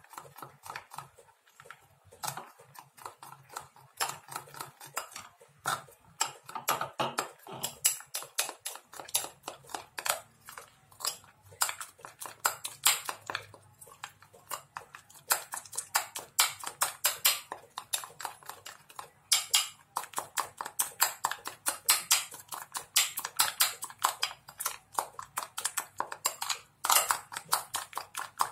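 Metal spoon clinking rapidly against a small glass bowl as an egg and crispy-fry flour are beaten into a batter, the strokes quickening about nine seconds in.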